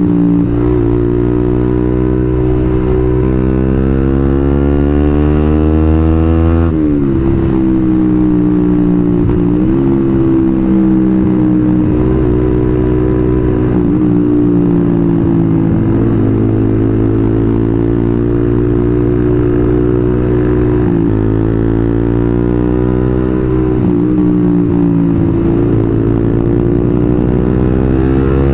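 Suzuki GSX-R150's single-cylinder engine riding through a WRX New GP K2 aftermarket racing silencer on a custom header. The pitch climbs slowly and drops sharply about seven seconds in, then rises and dips several more times with the throttle.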